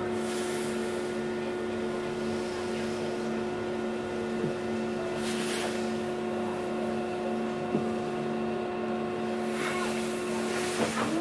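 Express passenger boat's engines running steadily, heard on board as a constant drone with several steady hum tones.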